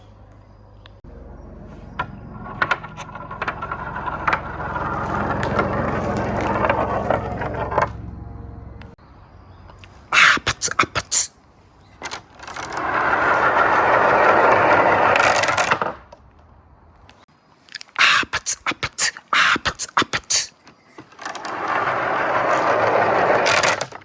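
Marbles rolling along the long rails of a marble run: a rolling rumble that builds over several seconds and then stops, and comes back twice more. Between these, quick runs of sharp clicking and clattering as marbles drop and knock against the track.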